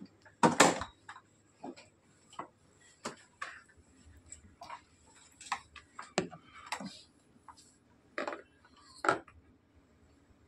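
Irregular plastic clicks and knocks as the hard plastic wheel of a children's electric ride-on jeep is pushed onto its axle and worked into place by hand, the loudest knock about half a second in.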